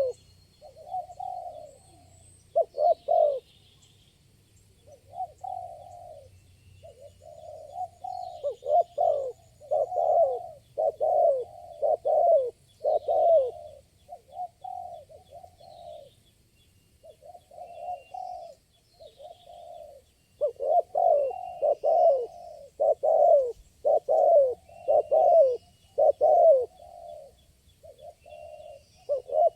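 Spotted doves cooing: repeated coo phrases in runs with short pauses between them, over faint high chirps.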